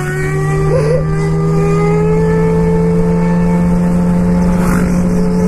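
Suzuki GSX-R sportbike engine running under way, its pitch climbing slowly and steadily as it pulls in gear, with wind noise on the microphone.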